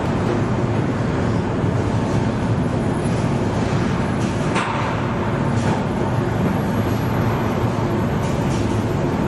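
Steady din of a car body assembly line: machinery and conveyor noise with a low hum and scattered faint clicks of hand tools. There is one short hiss about halfway through.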